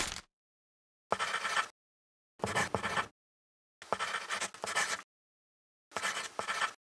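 Pen or pencil scribbling on paper in four short bursts, about half a second to a second each, with silence between them, after a brief sharp sound at the very start.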